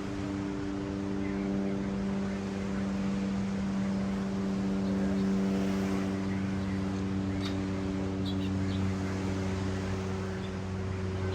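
A steady low engine-like hum over the even rush of ocean surf, with a few faint high bird chirps in the second half.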